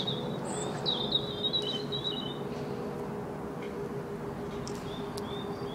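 Small garden birds chirping, with a warbling song for a second or two about a second in, over a faint steady hum and outdoor background noise.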